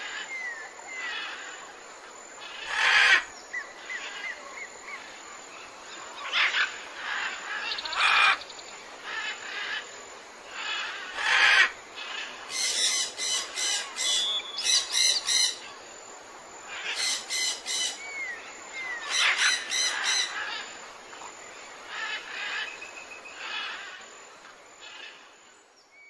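Wild birds calling: loud harsh squawks every few seconds, short whistled chirps, and in the middle stretch quick runs of rapidly repeated notes.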